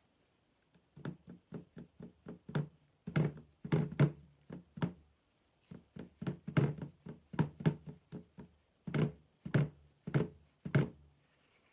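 A small plastic glitter container being tapped and shaken, giving a string of hollow knocks a few times a second that start about a second in and stop near the end. The glitter is not coming out because the caps are still on.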